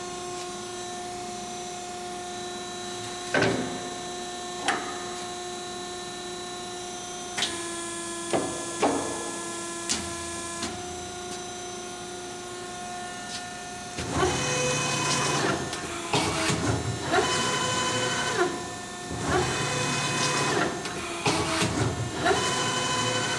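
Euromac BX 750/30 hydraulic CNC punch press running, a steady hum with a few sharp clunks in the first half. From about halfway through it goes into a run of whirring motor pulses and clunks, roughly one a second.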